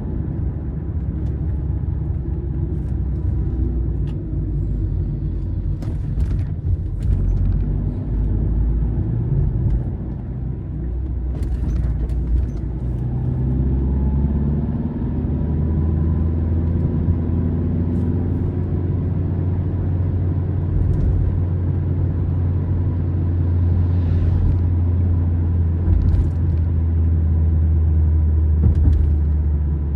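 A car driving on a highway: a steady low engine and road rumble, with the engine note shifting and climbing as the car changes speed. A few brief knocks come through, about 6, 12, 24 and 26 seconds in.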